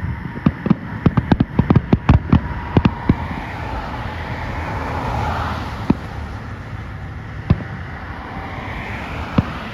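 Fireworks going off: a rapid string of sharp bangs and crackles for about the first three seconds, then three single bangs spaced a second and a half to two seconds apart.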